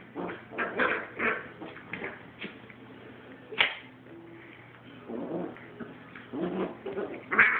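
Puppy snarling, yapping and yelping at an older dog in rough play, in short irregular bursts. A single sharp click about three and a half seconds in, with the loudest yelps near the end.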